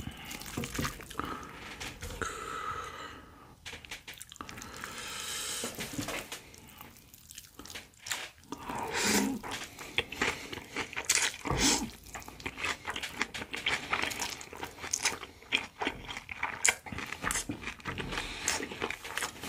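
Close-miked eating of a spicy whelk, cucumber and thin wheat noodle salad: noodles slurped from chopsticks, then steady wet chewing with many sharp crunches and clicks, denser in the second half.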